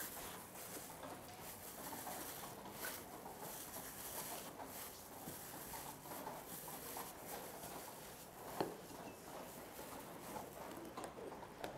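Faint rustling and light taps of gloved hands handling bowls and small plastic ingredient containers on a counter, with one sharper click about eight and a half seconds in.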